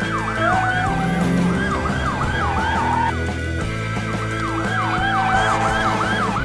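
Fire truck siren sound effect in a fast yelp, its pitch sweeping up and down about three times a second, in two spells with a short break around the middle, over background music.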